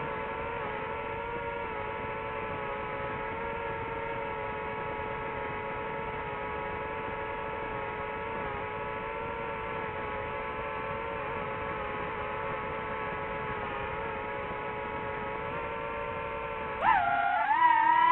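Drone motors and propellers whining steadily in cruise. Near the end the whine jumps up in pitch and grows louder as the throttle is pushed up.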